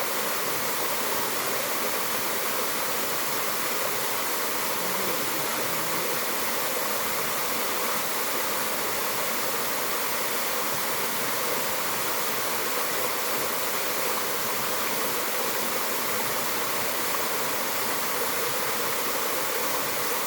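Mountain waterfall: water pouring and splashing in a steady, even rush.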